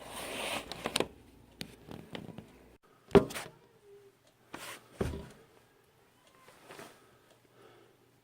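A handful of separate knocks and thumps, the loudest about three seconds in, after a brief rustling noise at the start; a low hum stops shortly before the loudest knock.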